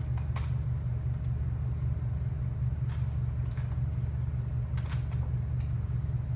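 A steady low hum, with several light clicks and taps scattered over it.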